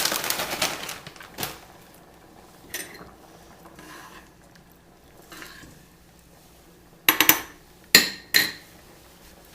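A bag of garlic butter croutons crinkling and rustling at the start, then a few small clicks, and near the end three sharp clinks of kitchenware, the loudest sounds.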